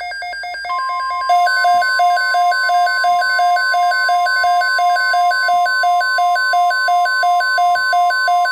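Weather radio alert: an alarm beeping rapidly between two pitches, about three times a second, with the broadcast's steady warning alarm tone sounding under it from about a second in. Here it signals a severe thunderstorm watch.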